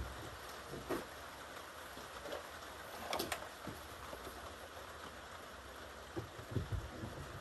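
Steady patter of rain, with a few short knocks and clunks as the chainsaw is handled and turned around in the vise: one about a second in, one about three seconds in, and a few close together near the end.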